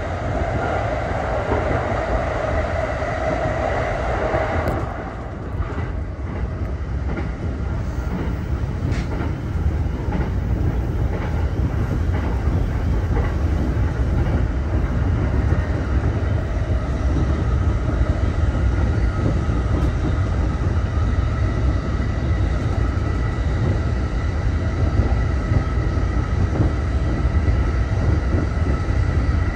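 JR East E231 series electric commuter train running along the line, heard from inside the leading car: a steady low rumble of wheels on rail. Over it a whine is strongest at first and drops away about five seconds in, then a fainter high steady whine comes in later.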